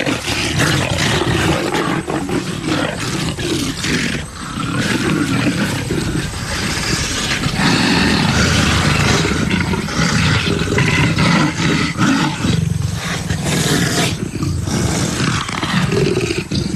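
Male and female leopard growling at each other in a snarling clash at first meeting, almost without pause and loud, as the male asserts dominance over the female.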